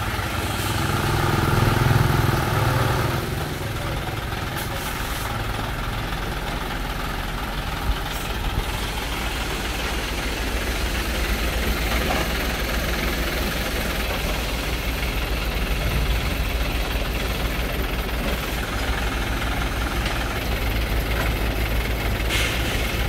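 TMT dump truck's diesel engine running steadily while its tipper bed is raised to tip out a load of sand; the rumble swells louder about one to three seconds in.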